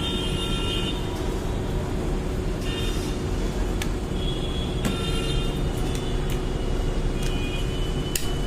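Steady background rumble with a constant low hum, and a few faint clicks and brief high tones on and off.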